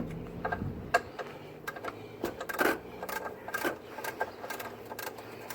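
Irregular light clicks and knocks, a few each second, of hand tools being handled during car repair work.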